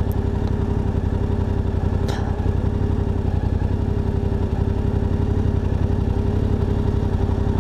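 Yamaha Ténéré 700's parallel-twin engine idling steadily while the bike stands still.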